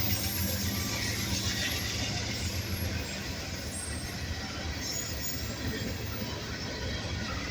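Union Pacific freight train rolling by: a low, steady locomotive engine drone over the rumble of wheels on the rails. The drone eases off about three seconds in as the train continues to run.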